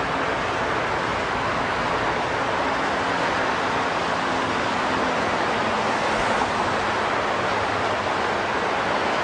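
Steady roar of freeway traffic below, a constant wash of tyre and engine noise with no distinct events.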